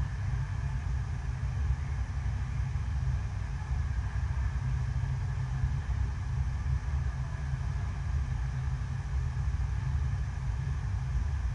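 Artificial surf wave machine running: a steady sheet of water rushing up the wave surface, heard mostly as a deep, even rumble with a fainter hiss above it.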